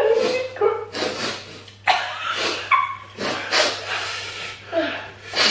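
A person breathing in sharp, hissing breaths about once a second, with short whimpers, from a mouth burning with hot pepper.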